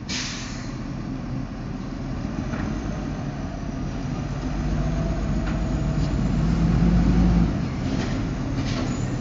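Automated side-loader garbage truck's diesel-style engine running as the truck drives slowly toward the microphone, growing steadily louder, then the low engine note drops off suddenly about three-quarters of the way through.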